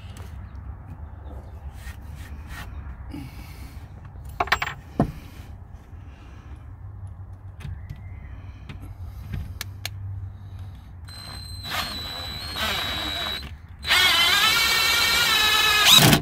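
Bauer 20V cordless drill drilling into plywood: after a few light clicks of the bit being handled, the motor whines in short runs, then runs longer and louder near the end, its pitch wavering as the bit bites into the wood.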